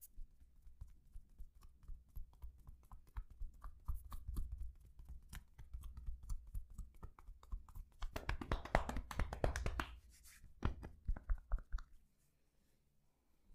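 Hands massaging a person's back: many quick taps and clicks over soft rubbing on skin and cloth, with a denser, louder stretch of rubbing about eight seconds in.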